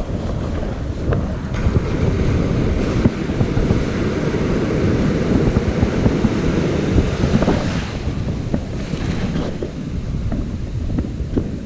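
Wind buffeting the microphone over breaking surf. The rush of waves washing up swells from about a second and a half in and eases off about eight seconds in.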